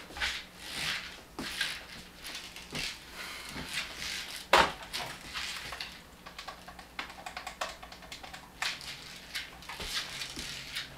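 A series of irregular clicks and knocks, with one much louder knock about four and a half seconds in.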